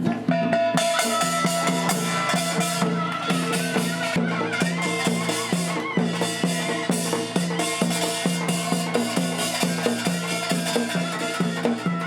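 Traditional Korean music with a steady, evenly repeating drum beat under a held melody line.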